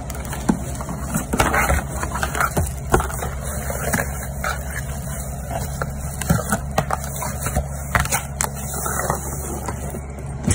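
A cardboard USPS Priority Mail flat-rate box being handled and its flaps folded shut by hand: scattered rustles, scrapes and light taps, over a steady low hum.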